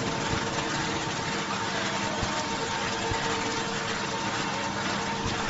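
Fried-snack production line machinery running steadily: an even mechanical hum with a few held tones over a hiss.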